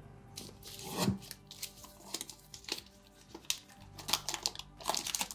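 Quiet background music, with the rustling and light taps of paper and cardboard packaging being handled. The handling grows busier near the end.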